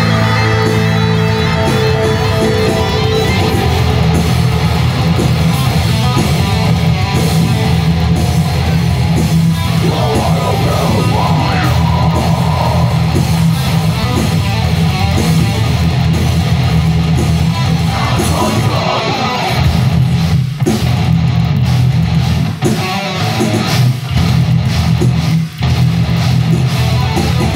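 Heavy metal band playing live and loud, with electric guitar and bass guitar driving a dense, heavy low end. The band breaks off into several short stops in the last third.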